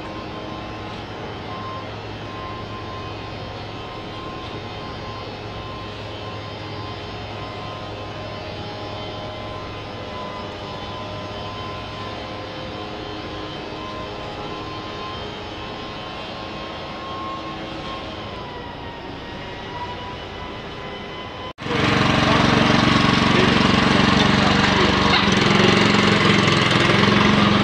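Machinery running with a steady drone and a held whine. About 21 seconds in it cuts off, and a much louder machine noise starts at once.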